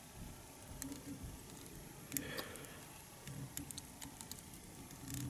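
Faint, scattered small clicks and soft rustles of fingers working tying thread around a fly held in a fly-tying vise, as a whip finish is made at the head of the fly.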